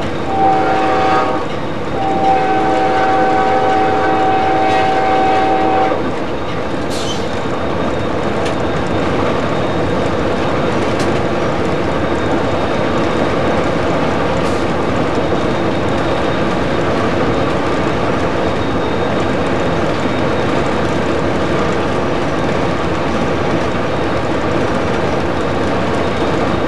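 Amtrak P40-8 locomotive's air horn heard from the cab, giving a short blast and then a long blast that stops about six seconds in. After that the locomotive runs on at speed with a steady rumble of wheels on rail and a few faint clicks.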